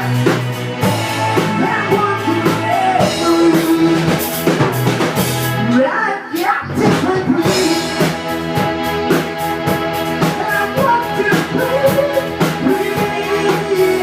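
Rock song with drum kit, guitar and a singing voice; the bass and drums drop out briefly about six seconds in.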